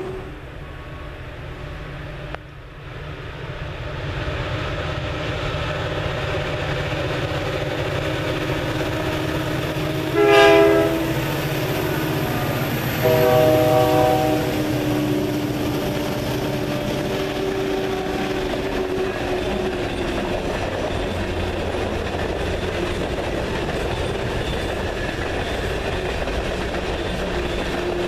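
Freight train cars rolling past with a steady rumble and wheel clatter. About ten seconds in a diesel locomotive's horn gives a short blast, then a longer one a few seconds later.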